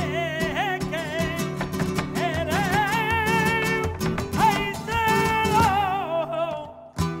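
Flamenco song: a singer draws out a long, wavering line with vibrato over two acoustic flamenco guitars. The voice and guitars fade out near the end, and the guitars come back in just after.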